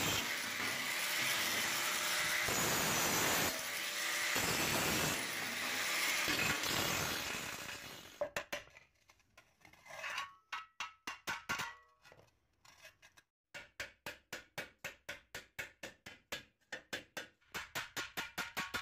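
Angle grinder with a flap disc grinding rust off a steel shovel blade, running steadily and then stopping about eight seconds in. From about ten seconds in come quick, rhythmic strokes across the bare steel blade, several a second, with a light metallic ring.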